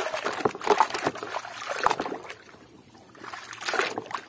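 Muddy water sloshing and splashing in a tub as a toy crawler crane is swished through it by hand to wash off the mud. It comes in irregular splashes, loudest in the first second and again near the end, quieter in between.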